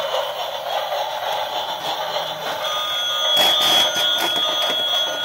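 Battery-powered toy trains running: a steady whirring noise with electronic toy tones. Steady beeping tones come in a little under three seconds in, followed by a brief plastic clatter as a hand takes hold of a train.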